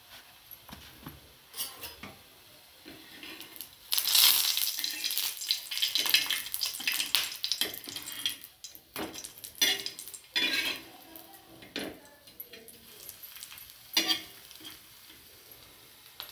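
Steel spatula scraping and clinking on an iron tawa as a frying pea kebab is lifted and turned. The scraping is busiest from about four to eight seconds in, with a sharp clink a couple of seconds before the end.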